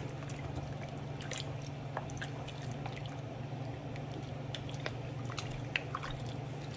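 A wooden spoon stirring a wet stew of chicken and vegetables in broth and condensed soup in a slow cooker crock: soft wet squishes and drips with faint light ticks of the spoon, over a steady low hum.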